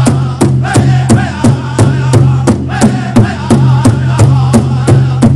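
Pow wow drum group: a big drum struck in a steady beat about three times a second, with singers chanting over it. A steady low hum runs underneath.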